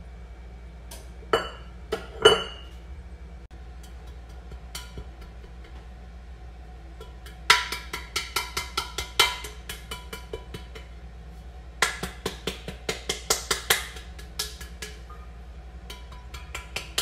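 A utensil knocking and clinking against a mixing bowl: a few single knocks near the start, then two bursts of quick strokes at about five a second. Dry ingredients are being stirred together.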